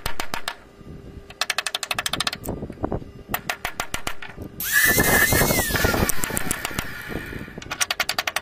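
Hammer driving a wooden dowel peg into a timber door frame, in quick runs of light taps. About halfway through, a power drill runs for a second or so, its whine falling as it stops.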